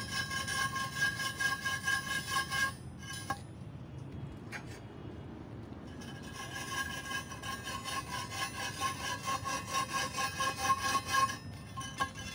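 Pre-formed sand mould for a thermite rail weld being rubbed back and forth against the rail to grind it to a close fit: a rhythmic scraping, stopping for about three seconds in the middle with one click during the pause, then resuming.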